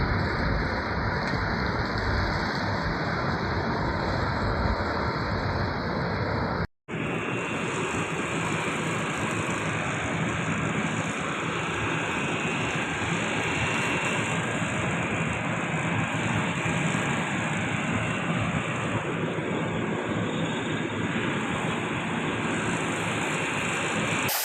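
Loud, steady machinery running, a constant hum with a rushing hiss. It cuts out for an instant about seven seconds in, then carries on with a slightly changed tone.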